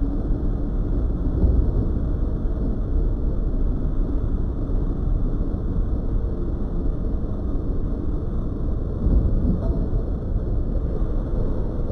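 Keihan 700 series electric train car rolling past at low speed, a steady low rumble of its wheels and running gear.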